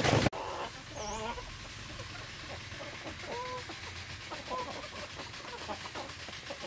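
Free-range chickens clucking: a few short, scattered calls over a quiet farmyard background. A brief loud rustle of ducks dabbling grain from a trough cuts off abruptly in the first moment.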